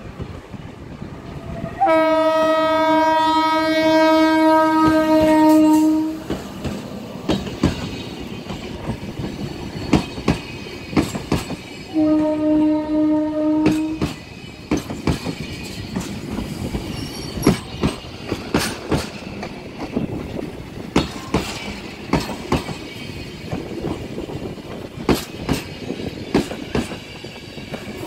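The horn of RENFE electric locomotive 269-604 sounds on one steady pitch, first in a long blast of about four seconds and then in a shorter blast of about two seconds. Afterwards the train's coaches roll by, their wheels clicking over the rail joints in an uneven rhythm.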